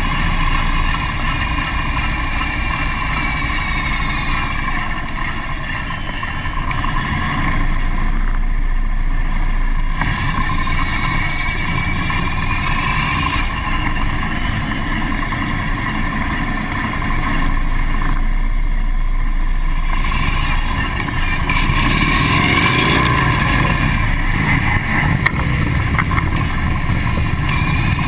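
Harley-Davidson police motorcycle's V-twin engine running at low speed through a cone course, heard up close from the bike itself. Its pitch rises and falls with the throttle, easing off twice.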